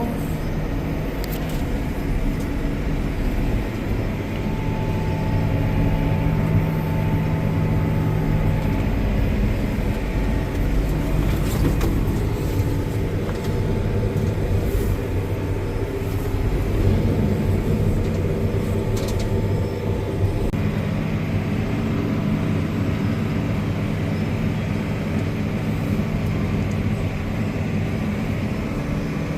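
Tractor engine running steadily with a Jiffy 900 bale shredder set to shred out bales; the engine note shifts a couple of times.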